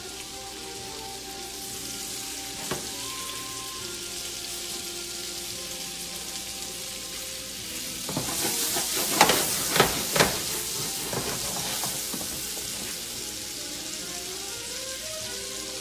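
Flour-dredged shrimp frying in olive oil and butter with garlic in a skillet: a steady sizzle that grows louder for a few seconds about halfway through as more shrimp are laid into the pan, with a few sharp clicks.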